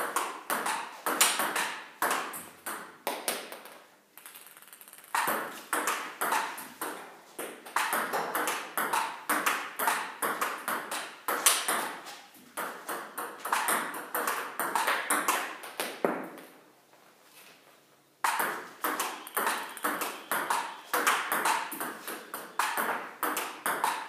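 Table tennis ball hit back and forth in a backhand practice rally: quick, even clicks of the ball on the rubber bats and the table top, two to three a second. The rally breaks off briefly about four seconds in and again about sixteen seconds in, then picks up again.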